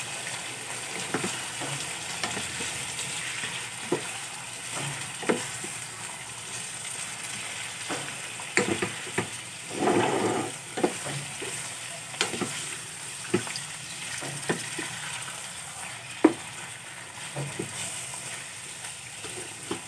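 Raw pork cubes frying in oil in a pan with garlic and onion, a steady sizzle. A wooden spatula stirs them, knocking and scraping against the pan at irregular moments, with a louder stir about ten seconds in.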